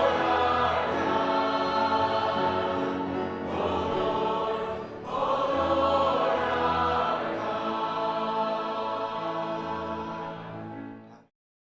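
Church congregation and worship band singing a closing praise anthem together, many voices holding chords over steady bass notes. The music fades out about eleven seconds in.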